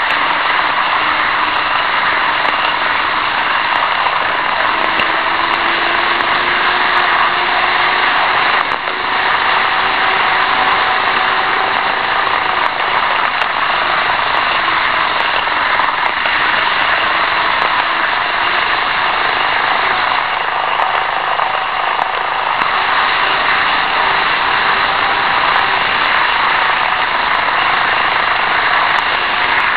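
N-gauge model trains running on the track: a steady whirring of small wheels and motors, with a faint hum that drifts slightly in pitch, picked up close by a cheap keychain camera riding on a model freight wagon.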